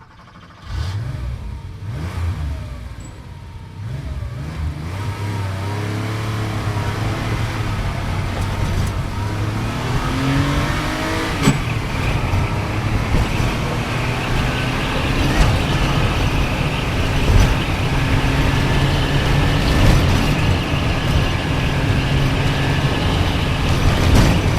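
Sports car engine accelerating, its pitch climbing and dropping back a few times in the first half, then holding a steady, louder drone at speed. A sharp click is heard about halfway through.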